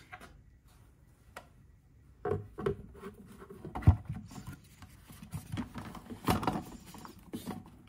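Clear plastic lid being fitted and seated onto a Masterpro kitchen robot's stainless steel mixing bowl: scattered plastic knocks, clicks and rubbing, the loudest knock about four seconds in.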